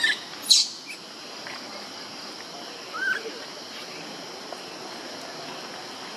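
Newborn macaque crying in distress: a shrill falling squeal at the start, a sharp high shriek about half a second in, and a short squeak around three seconds, over a steady insect hiss.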